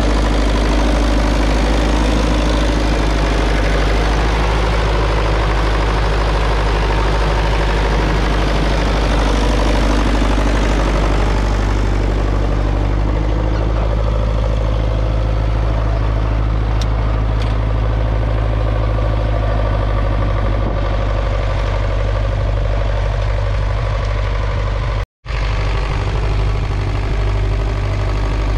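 1959 Massey Ferguson 35's 2.3-litre four-cylinder diesel engine running steadily under load, pulling a two-furrow mounted plough. The sound breaks off for a split second near the end.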